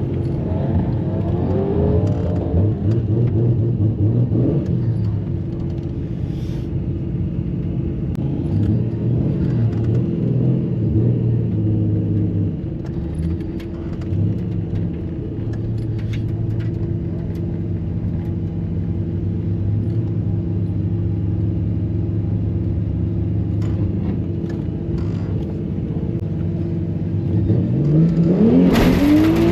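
Turbocharged Nissan RB30 straight-six in a VN Commodore drag car idling and rolling slowly, with a few short throttle blips, then revving up hard near the end.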